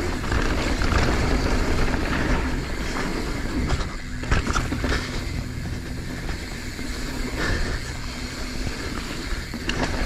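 Mountain bike descending a rough downhill trail: wind rushing over the action camera's microphone and tyres rumbling on dirt, with sharp knocks and rattles from the bike over bumps.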